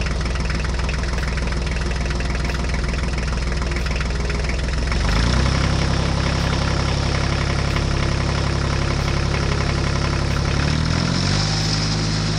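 Diesel tractor engine running steadily; its pitch rises about five seconds in and shifts again near the end.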